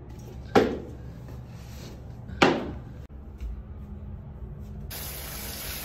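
Two sharp knocks about two seconds apart in a small tiled room. Near the end a shower starts running with a steady hiss.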